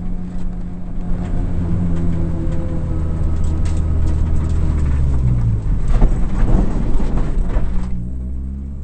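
Honda rally car's engine heard from inside the stripped, caged cabin, running hard with rattles and knocks from the car; the engine note drops about five and a half seconds in and the sound eases off near the end.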